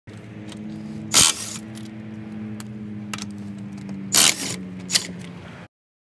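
DeWalt 20V cordless impact wrench running on a car's lug nut, its motor giving a steady hum. There are short, louder bursts about a second in and twice near the end, and the sound cuts off abruptly just before the end.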